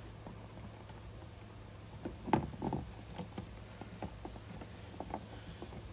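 Scattered light clicks and knocks of hands pushing wire connectors together and handling the plastic of a cassette RV toilet, the loudest knock about two seconds in, over a steady low hum.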